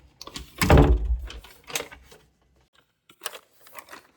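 A heavy thump about a second in, followed by a few lighter knocks, like things being handled or a door closing in a small room.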